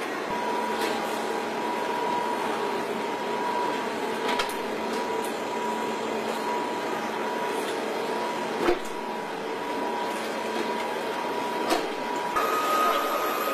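Engine assembly-line machinery running: a steady mechanical noise with a constant whine, broken by three sharp knocks. The whine steps up slightly in pitch near the end.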